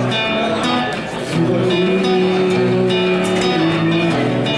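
Steel-string acoustic guitar played live: a quick run of picked notes, then a chord that rings out from about a second and a half in until near the end.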